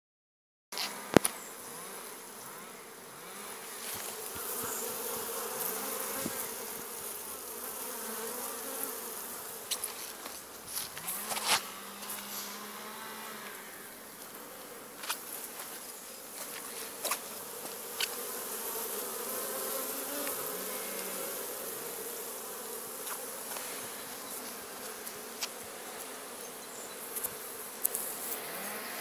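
Honeybees buzzing around the entrances of wooden hives: a steady hum with single bees flying close past, each rising and falling in pitch. A few short sharp clicks, the loudest about a second in.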